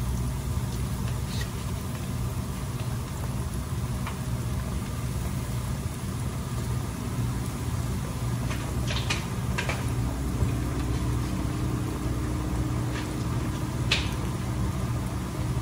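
Ribs deep-frying in a pot of hot oil, the oil bubbling steadily over a constant low mechanical hum, with a few short clicks about nine and fourteen seconds in.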